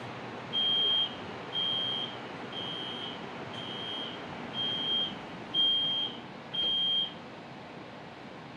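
Metro train door-closing warning: seven short, high, identical beeps, about one a second, over the steady noise of the train, signalling that the doors are about to close.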